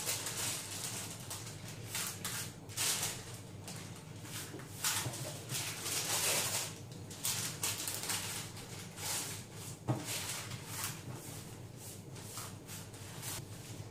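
Baking paper rustling in irregular bursts as it is lifted, folded over and pressed around a meatloaf being rolled up by hand, with one sharp click about ten seconds in.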